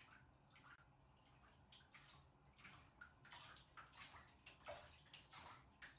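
Near silence, with faint, short ticks or drips scattered irregularly, coming a little more often toward the end.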